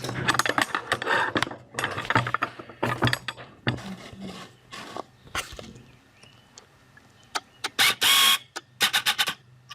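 A run of sharp clicks and small knocks from handling objects, with a louder rasping burst lasting about half a second near eight seconds in, then more quick clicks.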